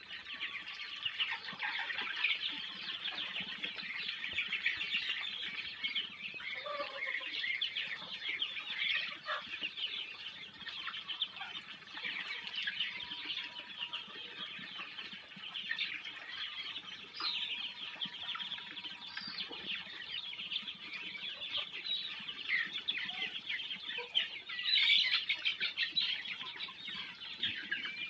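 A large flock of 12-day-old Muscovy ducklings peeping together, many short high chirps overlapping without pause, rising a little about three-quarters of the way through.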